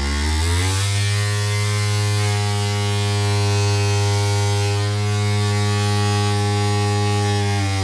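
Cordless vibrating suction cup for tiles buzzing steadily. Its pitch rises within the first second as the vibration is turned up on its fine-adjustment switch, then dips slightly near the end.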